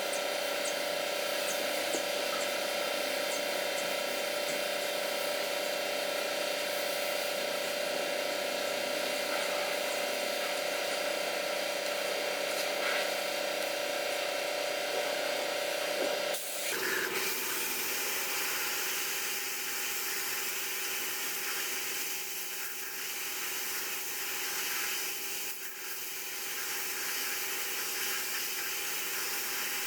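Steady hiss of a motor-driven cleaning tool running, with a sudden change to a different steady hiss about sixteen seconds in.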